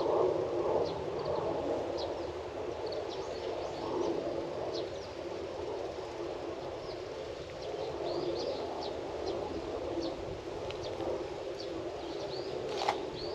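Small birds chirping in short, scattered high calls over a steady, lower-pitched outdoor murmur, with one sharp click near the end.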